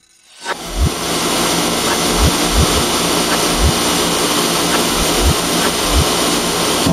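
Dairy milking system at a DeLaval glass milk receiving jar, running with a steady loud hiss and hum of vacuum and air. Low thumps come about twice a second as milk and air surge into the jar. The sound starts suddenly about half a second in.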